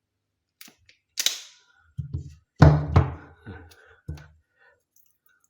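Taffware TK0742 automatic wire stripper at work on coaxial cable: one sharp snapping click about a second in as the jaws close through the cable, then several dull thunks and knocks as the tool and cable are handled.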